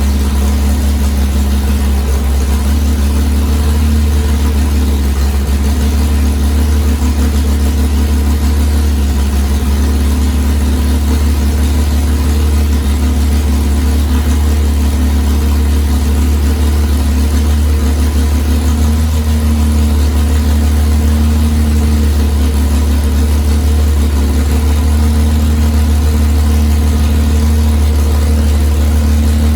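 Chrysler Hemi 265 straight-six engine with a CNC-ported head, idling steadily.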